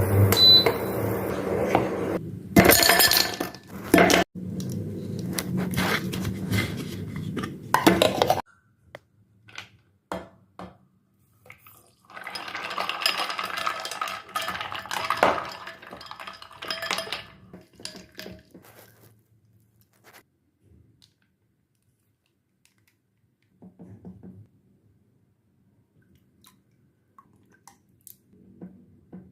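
Kitchen work: a steady hum with a few clicks for about the first eight seconds, then dishes and utensils clinking and knocking, fading to quiet toward the end.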